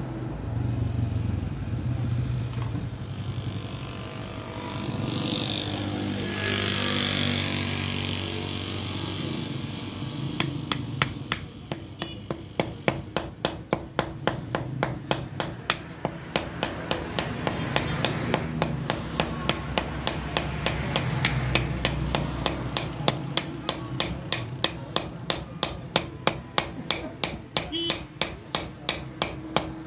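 Hand hammer striking the steel head of a small hand tool on an anvil block, driving its hot tang down into a wooden handle. Sharp, regular blows, about three a second, begin about ten seconds in and keep going.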